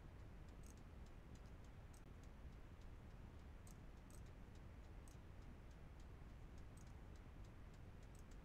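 Near silence: faint room tone with a few faint, irregular clicks scattered through it.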